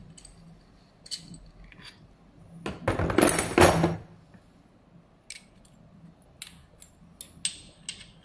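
Steel tool parts clicking and clinking as the hydraulic expander's clamp bar is loosened and taken out, with a longer, louder clatter about three to four seconds in as the hydraulic tool is set down in its plastic case.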